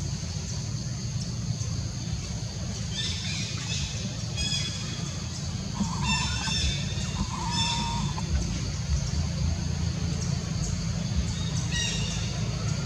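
Birds calling in short, high-pitched bursts several times, over a steady low rumble.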